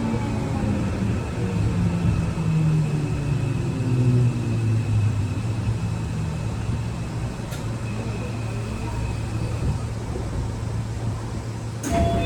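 Keio 8000 series train's Toshiba permanent-magnet synchronous motor VVVF inverter drive whining under the car floor over wheel-on-rail running noise. Its tones glide down in pitch over the first few seconds as the train slows, then hold steady. A sharp clack comes near the end.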